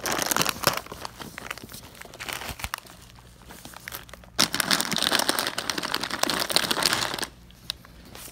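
Crinkling and rustling of plastic bags and packaging as a piece of luggage is rummaged through by hand. It comes in two bouts: a short one at the start and a longer one from about halfway to near the end.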